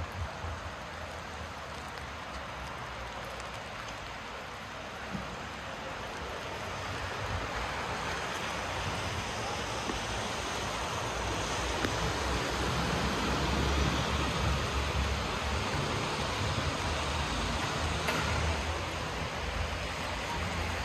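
Wet city street in the rain: a steady hiss of rainfall and tyres on wet road over a low, uneven rumble of traffic, growing louder through the middle and easing a little near the end.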